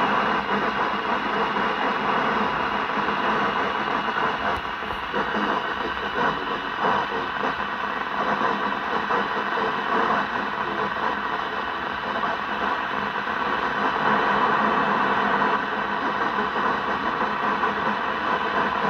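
CRT 6900N CB radio on FM putting out steady static hiss through its speaker, from a weak long-distance skip signal with no clear speech.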